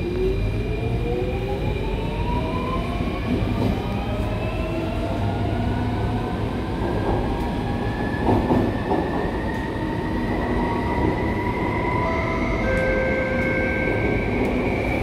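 Alstom C830 metro train accelerating away from a station, heard inside the motor car. The traction motors whine in several tones that climb steadily in pitch over a constant low rumble of the running gear.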